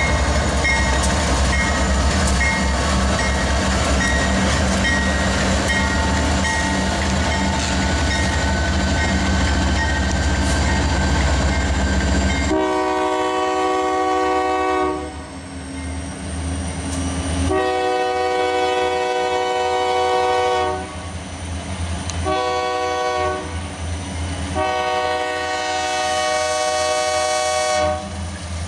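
Union Pacific diesel freight locomotives passing close by, with engine rumble and wheels on the rails. About halfway in, the lead locomotive's air horn sounds the grade-crossing signal: long, long, short, long.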